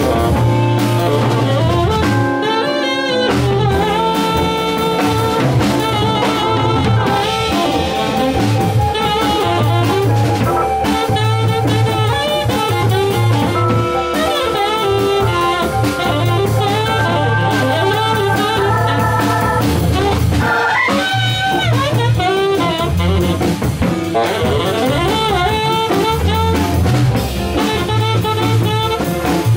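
Live small-group jazz: a saxophone playing melodic lines over an electric organ, hollow-body electric guitar and drum kit, with a strong steady bass line underneath.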